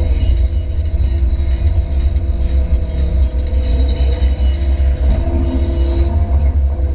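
Diesel engine of an 8-tonne Hyundai midi excavator running under load as it digs, heard from inside the cab: a steady deep rumble with a constant hum of tones above it.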